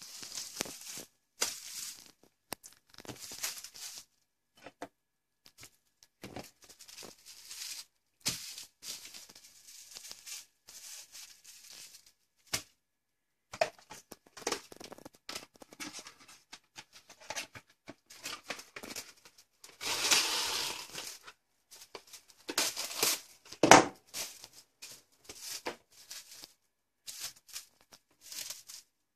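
Clear plastic wrap crinkling and rustling as it is handled, in irregular bursts with short pauses, and one longer rustle about two-thirds of the way in. A single sharp knock, the loudest sound, comes a few seconds before the end.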